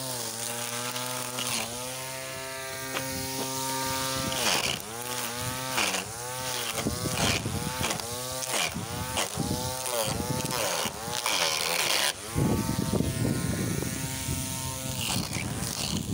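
Electric string trimmer running, its motor whine dipping in pitch again and again as the spinning line cuts into grass, with the crackle of the cut grass. It cuts out briefly about twelve seconds in and starts again.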